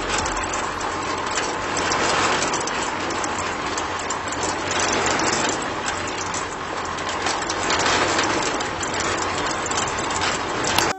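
A small motorised machine running steadily.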